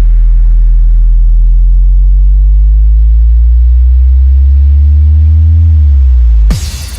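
Synthesized deep-bass speaker test tones: a loud, steady sub-bass drone with a pure tone over it that slowly rises in pitch and then falls. About six and a half seconds in it cuts off suddenly and a brighter, buzzing high-pitched test sound begins.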